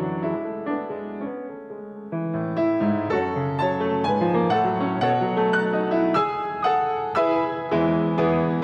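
Solo piano music, notes struck and left to ring in a gentle, slow-moving passage. It thins out and softens about a second in, then returns fuller after two seconds.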